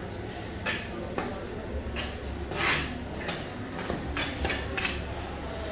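Chef's knife slicing through a snakehead fish and scraping and tapping on a cutting board: about nine short scrapes and taps, the longest and loudest near the middle, over a steady low hum.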